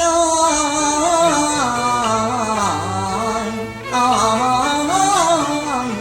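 A singer in Cantonese opera style draws out one syllable in a long, wavering, ornamented melody over instrumental accompaniment, pausing briefly about four seconds in.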